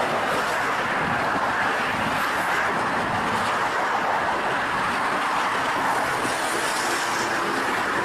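Steady noise of a moving vehicle, an even rush with no clear engine note and no sudden events.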